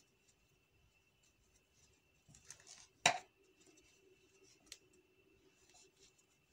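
Thick macrame cord rustling and scraping against a metal crochet hook as stitches are worked, faint and intermittent. A sharp click about three seconds in is the loudest sound, with a smaller tick a moment later.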